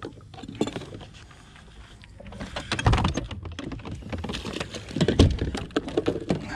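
Clicks, knocks and clatter of fishing rods and gear being handled on a bass boat's deck, with two heavier thumps about three and five seconds in.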